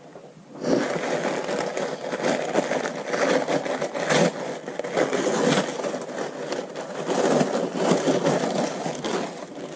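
Packaging around a new paper planner being torn open and handled: a continuous run of crinkling, rustling and scraping with many small crackles, starting about half a second in.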